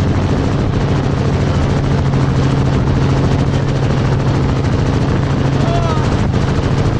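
Helicopter in flight heard close up from the airframe: a steady low engine hum and fast, even rotor beat, with wind rushing over the microphone.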